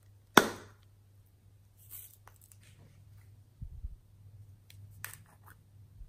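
Small objects being handled by hand: a sharp click about half a second in, the loudest sound, then scattered light taps and rustles and a soft low thump, over a faint steady low hum.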